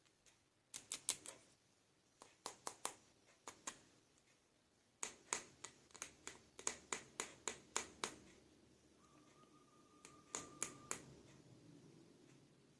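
Sharp clicks and taps in quick clusters of several at a time: small plastic toy animal figures being handled.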